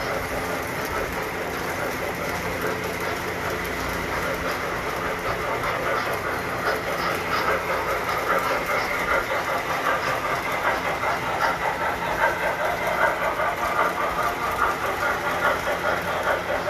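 Tinplate model train running on metal track: a steady rumble with a rhythmic clicking that grows louder from about halfway through.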